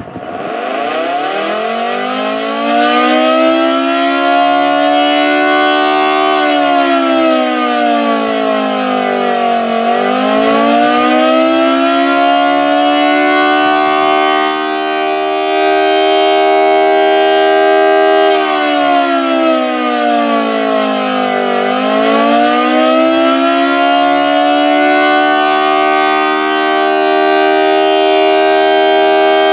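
Federal Model 2T two-tone outdoor warning siren winding up to full pitch in the first couple of seconds, then sounding a steady chord. The chord sinks in pitch and climbs back twice, lowest about ten and twenty-two seconds in.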